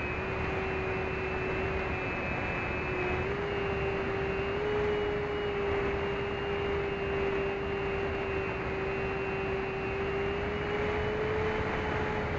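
Electric motor and propeller of an FPV plane in flight: a steady whine over wind rush on the onboard microphone. The pitch steps up slightly a few times as the throttle changes.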